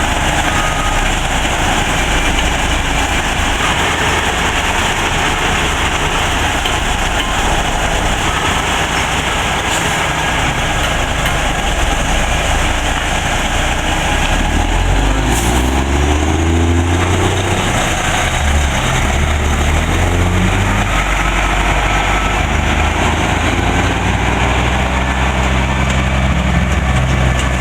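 Heavy diesel truck loaded with demolition debris, its engine pulling away and revving up about halfway through, then running steadily.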